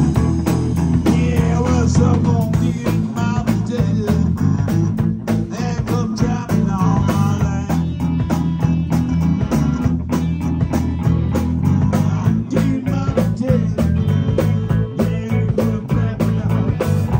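Rock band playing live: distorted electric guitars over a drum kit keeping a steady beat, with a lead line bending in pitch.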